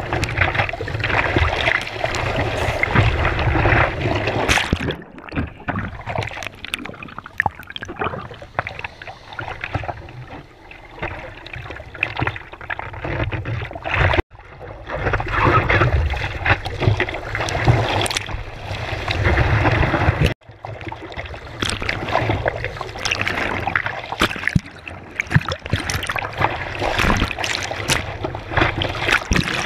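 Seawater splashing and sloshing against a board-mounted camera as a surfer paddles prone on his surfboard, rising and falling unevenly with each stroke and passing wave. It breaks off sharply twice, briefly.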